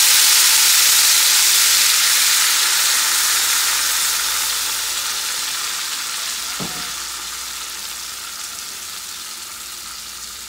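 Marsala cooking wine sizzling in a hot cast iron skillet as it deglazes the pan the chicken was fried in. The sizzle fades steadily as the pan cools.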